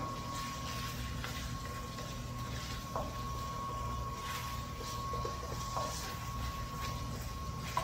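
A wooden spatula scraping and tossing food around a steel wok in short, irregular strokes, over the steady hum and thin whine of the small electric blower fan on a coal-burning camp stove.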